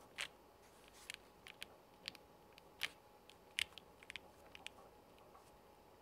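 Keystrokes on a KBDfans Odin mechanical keyboard with a polycarbonate (PC) plate: a dozen or more sharp key clacks, scattered and unevenly spaced rather than fast continuous typing.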